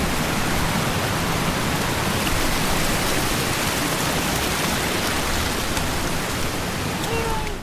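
Steady, loud rush of a waterfall running strong after heavy rain, heard close up. It cuts off suddenly near the end.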